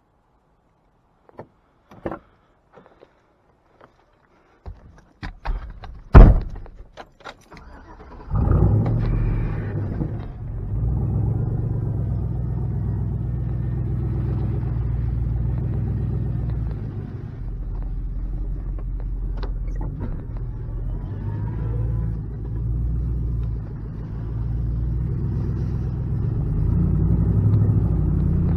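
A few sharp knocks and clunks of handling, the loudest about six seconds in. About eight seconds in, a pickup truck's engine comes in and runs steadily.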